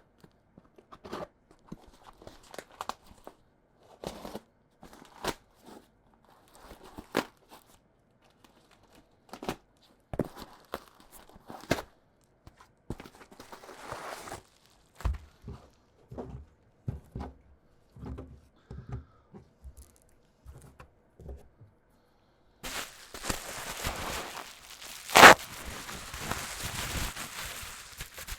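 Packaging being handled and unwrapped by hand: scattered taps and clicks of small items, then several seconds of continuous crinkling and tearing of plastic wrapping, with one sharp snap partway through.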